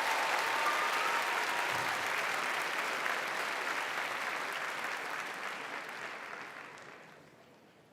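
Studio audience applauding, the clapping dying away over the last couple of seconds.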